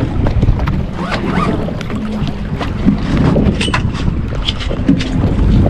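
Wind buffeting the microphone and water moving around a fishing boat, with many small clicks and knocks scattered throughout.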